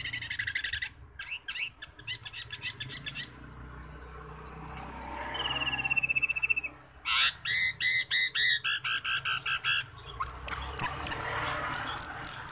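Asian glossy starling (cucak keling) singing loudly, a varied run of fast trills, rows of quickly repeated high notes and falling whistles. The loudest part is a string of sharp, high repeated notes near the end.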